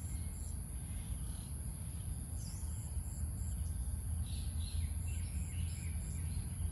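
Outdoor ambience: a steady high-pitched insect drone over a low rumble, with a bird giving a series of short falling chirps from about four seconds in.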